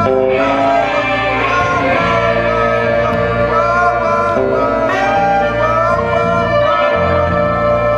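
Live ensemble music: several instruments holding overlapping notes, with short melodic phrases that rise and fall above them.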